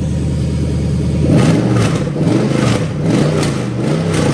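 Lexus 1UZ-FE VVT-i 4.0-litre V8 idling steadily, then revved in about four quick blips starting a little over a second in, each rising and falling back. The blips check that the drive-by-wire throttle responds.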